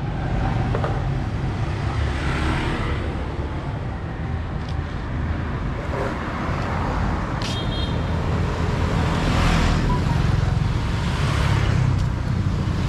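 Street traffic: motor vehicles passing over a steady low rumble, swelling and fading every few seconds, with a short high-pitched beep about halfway through.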